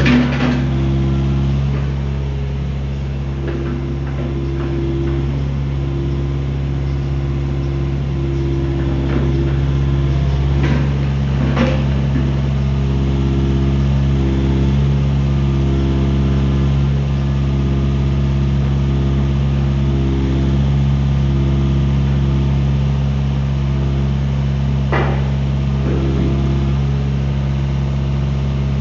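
Kubota KX057-4 mini excavator's four-cylinder diesel engine running steadily while the boom, arm and bucket are worked, with a higher hydraulic tone that comes and goes as the controls are moved. A few sharp metal clanks, twice around the middle and a couple near the end.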